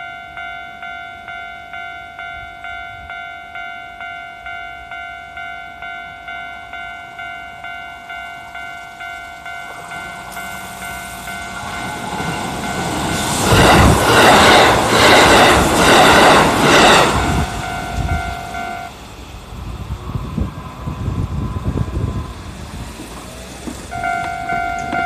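Japanese level-crossing warning bell dinging steadily, about twice a second. A Kintetsu train rushes past through the middle, loudest for a few seconds with a rapid clatter of wheels over rail joints, then fades. The bell stops a little after the train has gone and starts again near the end.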